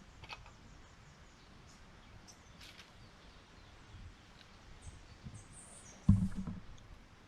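Quiet background with faint bird chirps and a few light clicks of metal parts being handled, then a single dull thump about six seconds in.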